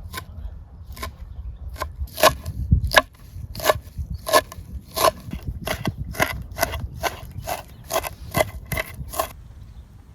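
Repeated chopping blows on wood, about two a second and around twenty in all, stopping shortly before the end, over a steady low rumble.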